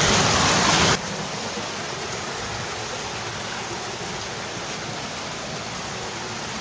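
Steady rushing of a shallow flowing stream. It is loud for about the first second, then cuts suddenly to a quieter, even rush.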